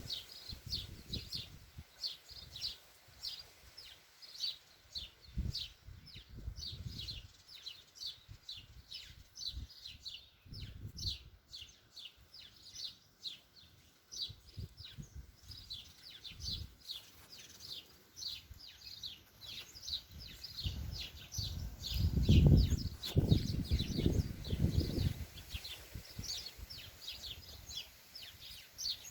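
A small bird chirping over and over, short high notes a few per second without a break, with gusts of wind rumbling on the microphone now and then, the strongest about three-quarters of the way through.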